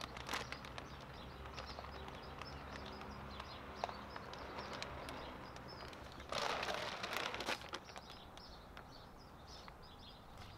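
Shiitake grain spawn tipped from a plastic bag onto the top of a hardwood log: a rush of falling grain and bag rustle lasting about a second, a little past the middle, with small clicks of grain before it. Small birds chirp faintly near the end.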